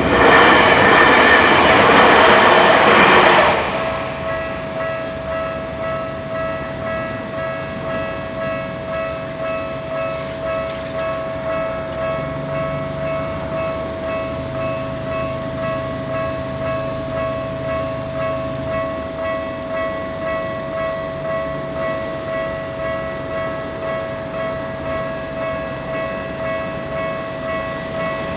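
Japanese level-crossing warning alarm ringing on with an even, repeating electronic tone while the barrier stays down. A commuter train passes through the crossing during the first three or so seconds, and another train starts coming through right at the end.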